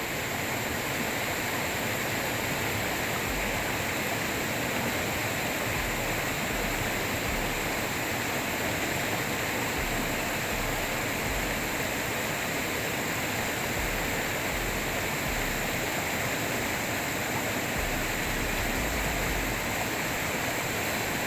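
Waterfall: falling water making a steady, unbroken rushing hiss.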